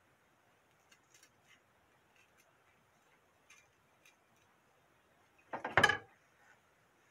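Faint small ticks of a chef's knife cutting into a mandarin orange's peel, then, about five and a half seconds in, a loud short clatter as the knife is set down on the wooden cutting board.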